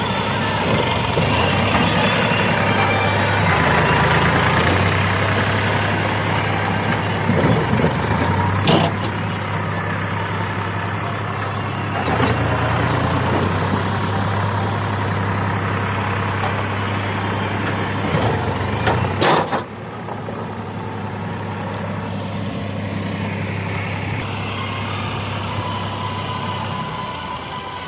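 Diesel engine of a heavy machine (backhoe loader or farm tractor) running steadily, its level rising and falling a few times as it works. There are sharp knocks twice, about 9 and 19 seconds in.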